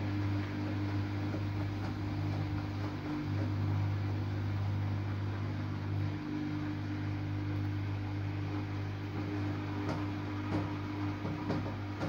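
Samsung Eco Bubble front-loading washing machine's motor humming steadily as the drum turns to distribute the laundry before the first intermediate spin, the pitch shifting as the drum slows and speeds up again. A few light knocks near the end.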